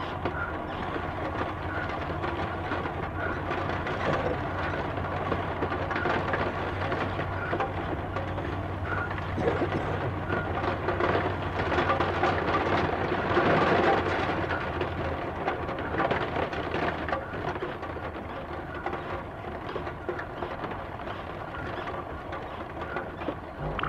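Dense rumbling noise texture from an experimental electronic sound collage, with a steady low hum underneath. It swells to its loudest about halfway through, and the hum drops away about two-thirds of the way in.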